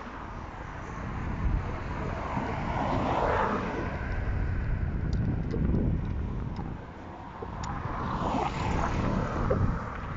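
Cars passing on a road, the tyre and engine noise swelling up and fading twice: about three seconds in and again near the end.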